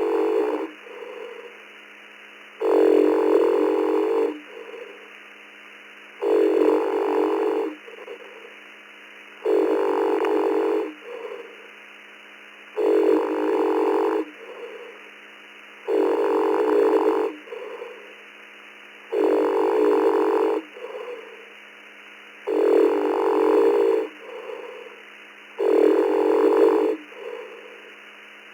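A person snoring heard over a two-way radio link: a loud snore about every three seconds, each followed by a shorter, softer breath, with the thin, band-limited sound of radio audio and a steady low hum underneath. Each snore keys the transmitter because the sleeping operator's radio is left on voice-operated transmit (VOX).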